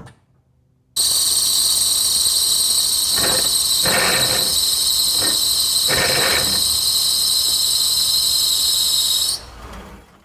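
2003 PT Cruiser GT manual transmission grinding with a loud, high-pitched squeal as the clutch is released and the car does not move, starting suddenly about a second in and cutting off near the end, with a few rougher surges. The owner links it to a front axle and intermediate shaft that spin freely without driving the wheel.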